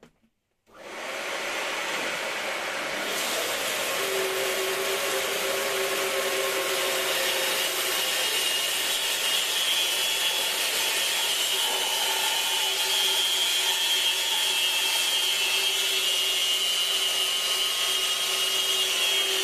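Bandsaw with a narrow 6 mm blade running and ripping a small ash log in half: a steady sawing noise that comes in suddenly just under a second in. A low steady hum joins a few seconds later and a higher whine after that.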